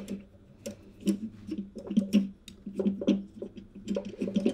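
Black plastic microphone shock mount being handled on a wooden tabletop: irregular small clicks and taps as its elastic bands are unhooked from the outer cage's hooks, over a steady low hum.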